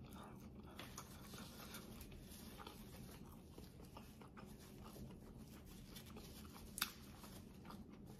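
Near silence: quiet room tone with a few faint small clicks, one sharper click about two-thirds of the way through.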